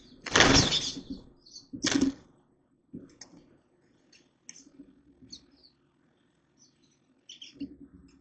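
Small birds chirping in short, scattered high notes, after two loud whooshing rustles in the first two seconds.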